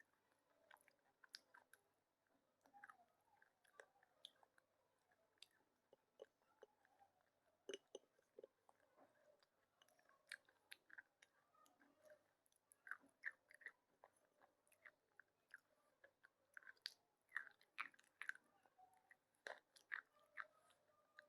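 A person biting and chewing slate pencils: faint soft crunches coming at an irregular pace, with a few sharper cracks among them.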